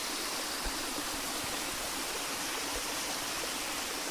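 Shallow stream water rushing steadily over concrete.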